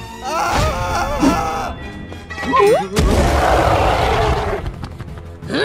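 Cartoon sound effects over background music: wordless character cries with bending pitch, then a sudden loud noisy stretch of about two seconds, like a monster roar or crash, and a fast rising whoosh near the end.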